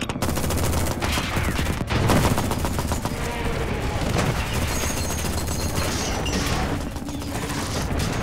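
Sound-effect weapons fire from combat robots: a sustained volley of rapid shots, densest in the first few seconds, within a thick battle mix.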